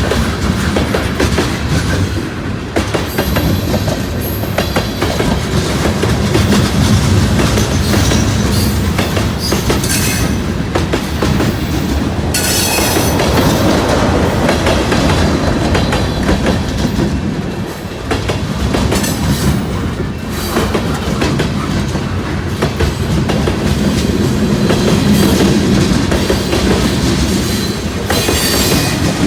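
Freight train rolling past close by, its railcar wheels clicking steadily over the rail joints.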